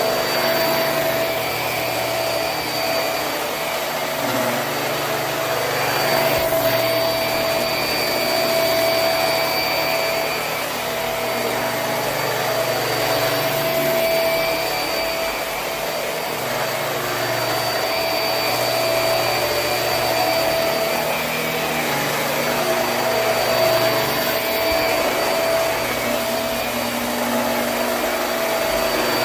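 Hoover High Performance Swivel upright vacuum running over carpet. Its motor gives a steady whine, and the sound swells and eases a little every few seconds as it is worked back and forth.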